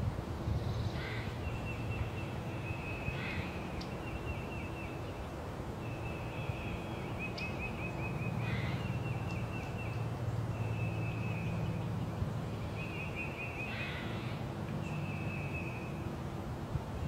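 Spring forest ambience: a rapid high trill repeated over and over, each about a second long with short gaps. Crows caw a few times over it, and a steady low rumble sits underneath.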